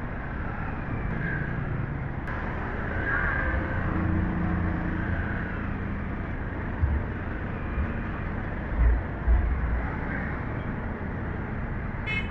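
Yamaha WR155 dual-sport motorcycle on the move, its single-cylinder engine running steadily under road and wind noise, with a few short low thumps about two-thirds of the way through.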